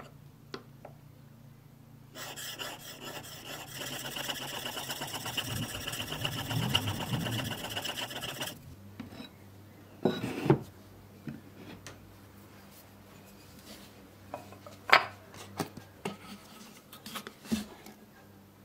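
Steel plane iron rubbed back and forth on a whetstone, a steady gritty scraping that stops about two-thirds of the way through. It is followed by a few separate knocks and one sharp click as the sharpening stone is handled on the wooden bench.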